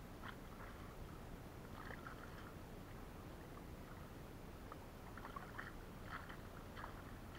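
Faint water splashing and dripping around a kayak: small irregular splashes, more of them about five seconds in, over a steady low background noise.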